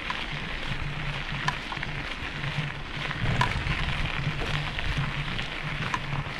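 Walking footsteps crunching along a trail in a steady rhythm, over a steady outdoor hiss.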